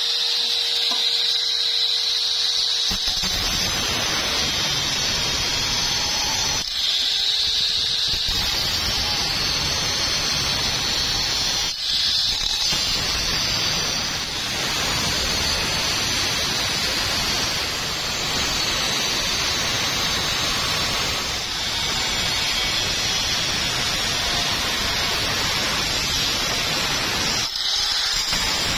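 Angle grinder with a thin cut-off disc slicing through steel square tube. The motor whines steadily at free speed for about the first three seconds, then gives a loud, harsh, squealing grind as the disc bites into the metal. There are a few short breaks where the disc spins free again, one of them near the end.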